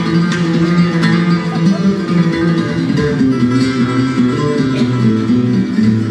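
Live acoustic band playing an up-tempo instrumental passage: nylon-string acoustic guitar strumming, with accordion and hand-drum beats.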